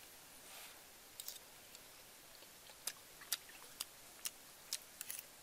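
Metal spoon clicking and scraping against a ceramic plate, a series of sharp clicks that come closer together near the end, with faint chewing between them.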